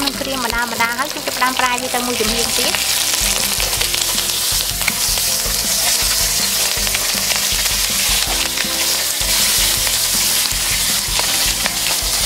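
Whole steamed mackerel frying in hot oil in a pan, the oil sizzling steadily and filling out louder after the first few seconds.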